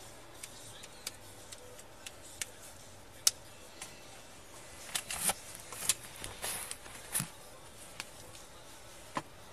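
Scattered sharp clicks and knocks over a steady hiss, with a cluster of rustling and clatter about five to seven seconds in: a body-worn camera picking up a trooper moving and handling things in the driver's seat of a patrol car.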